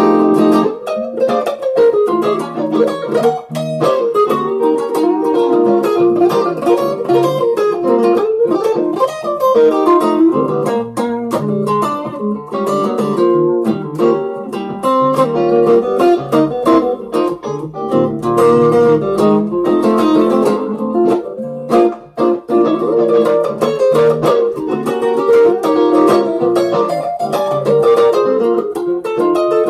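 Electric guitar played through a Zoom G1on multi-effects pedal, picking a single-note blues lead in B flat over CAGED shapes, with a brief break about two-thirds of the way through.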